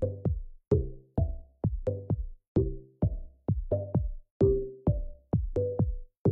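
Background electronic music with a drum-machine beat of sharp hits and short pitched notes.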